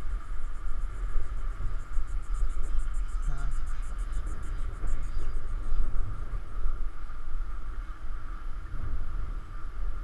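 Wind buffeting the microphone of a bike-mounted action camera while riding, a loud, uneven low rumble. From about two seconds in to about five seconds in, a faint rapid high ticking runs underneath.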